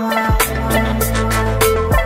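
Upbeat background music with a steady drum beat and bass.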